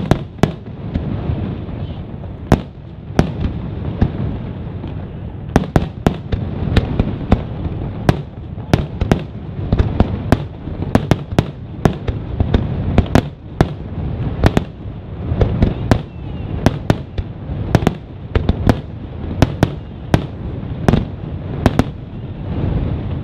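Aerial fireworks display: a rapid, irregular string of sharp shell bursts, about two a second, over a steady low rumble.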